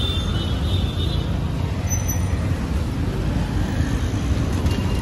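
Steady low rumble of street traffic noise.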